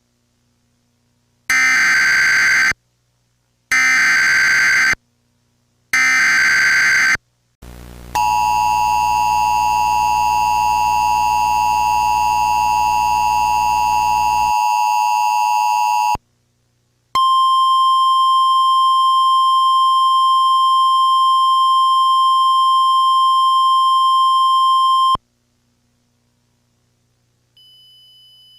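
Emergency Alert System tones opening an alert. First come three short buzzy data bursts of the digital header, then the two-note attention signal held for about eight seconds, with a low buzz under most of it. After a short gap a single steady warning tone sounds for about eight seconds, and a faint high tone starts just before the end.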